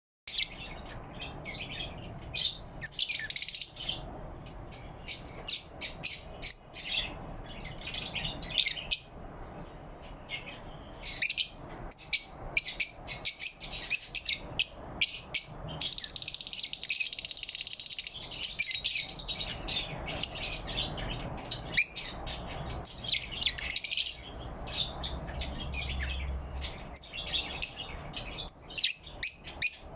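Lovebirds chirping: many short, high chirps in quick succession, with a denser stretch of continuous chatter about halfway through.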